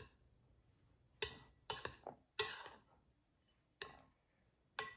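A metal spoon clinking and scraping against a glass mixing bowl while stirring a dry mixture of ground almonds, sugar and cinnamon: about five separate light knocks, some with a short glassy ring.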